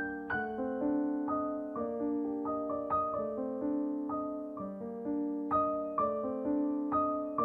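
Background piano music: a slow, gentle melody of sustained notes struck one or a few at a time, each ringing and fading.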